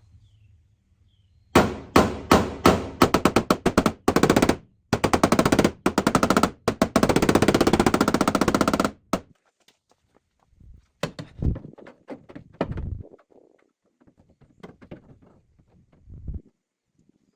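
Tapping down a dent on a car's steel quarter panel during paintless dent repair. A string of separate sharp taps speeds up into a fast, continuous rattle of taps lasting several seconds, then stops. A few scattered softer knocks follow.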